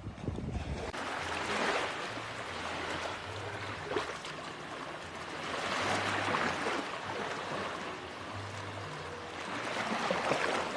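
Ocean waves breaking on a beach, each wash swelling and fading, about one every four seconds.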